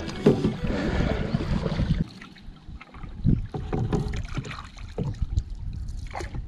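Background music ends abruptly about two seconds in. After that, water sloshes around a small wooden canoe being poled along, with wind on the microphone and occasional knocks.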